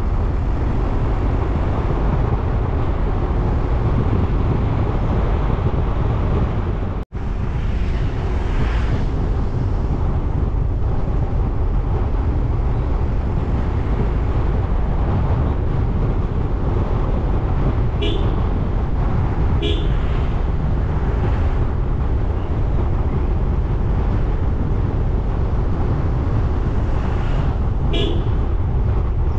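Steady road and wind rumble of a vehicle on the move, with three short vehicle-horn toots: two close together about two-thirds of the way in and one near the end. The sound cuts out for a split second about seven seconds in.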